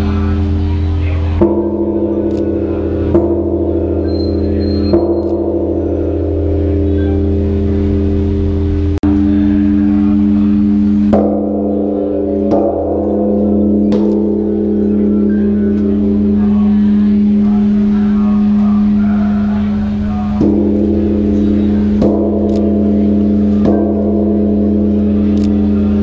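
Large bronze temple bell struck again and again with its hanging striker, in runs of three or four strokes about every second and a half to two seconds. Each stroke renews a deep, beating hum that never dies away between strikes.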